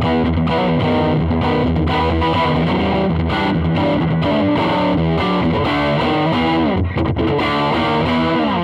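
Overdriven electric guitar riffs from a Custom Shop '58 Les Paul played through a Marshall Origin 20 valve combo with a 10-inch speaker, a mix of chords and single notes. Notes slide down in pitch near the end.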